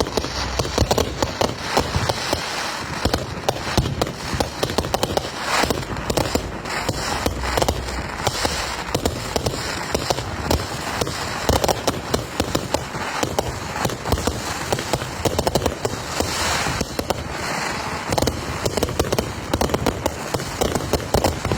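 Many fireworks going off at once: a dense, unbroken crackle of pops and bangs, with louder bangs standing out here and there.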